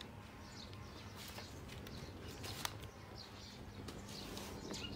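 Wood fire burning in a metal barrel stove, faint, with a few sharp crackles, and birds chirping in the background.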